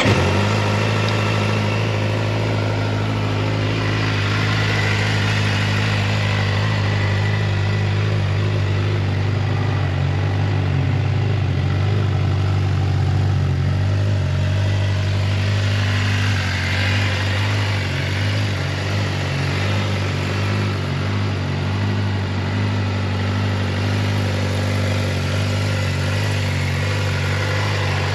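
2019 Suzuki GSX-R600's inline-four engine idling steadily just after start-up, with no revs.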